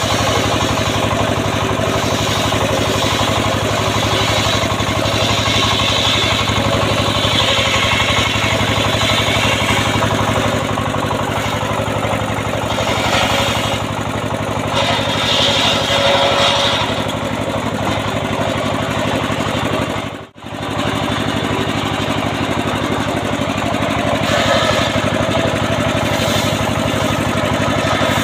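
Engine-driven homemade circular sawbench running steadily, its large blade ripping lengthwise through a teak log. The cutting noise swells and eases as the log is pushed through, and the sound cuts out for a moment about twenty seconds in.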